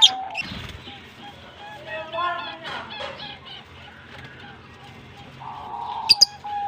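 Lovebirds chirping and chattering, with a few sharp, high chirps at the start and again near the end.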